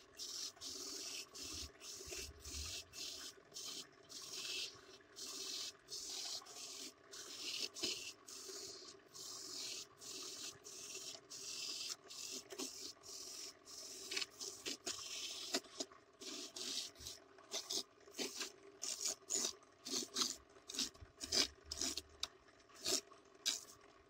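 Homemade electric coconut grater, driven by a reused washing-machine motor, shredding a coconut half: a rasping scrape with each push of the flesh against the spinning grater, over a steady motor hum. The pushes come quicker in the second half.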